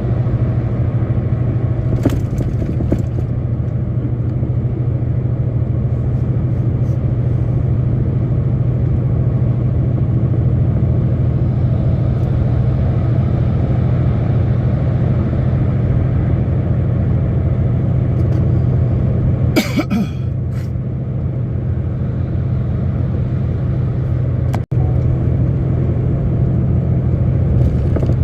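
Steady engine and road drone inside a truck's cab while driving, heaviest in the low end, with a short hiss about twenty seconds in.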